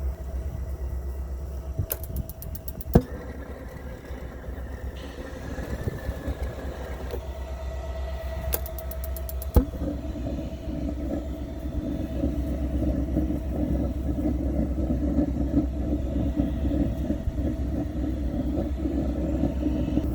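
Two runs of rapid even clicking, each followed by a sharp knock; after the second knock, about ten seconds in, a steady low rumble sets in and holds. This fits an Atwood RV water heater's spark igniter clicking and its propane burner lighting and burning, the sign that the repair has worked.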